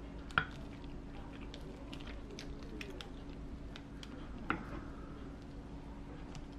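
Metal chopsticks picking at a grilled cutlassfish on a plate. Two sharp clicks, about half a second in and again about four and a half seconds in, stand out among many faint ticks and crackles as the flesh is pulled apart, over a faint steady hum.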